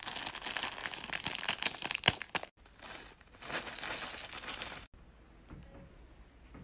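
Crinkling, crackling noise, dense for about two and a half seconds. After a brief break comes a softer, hissier stretch that cuts off sharply about five seconds in.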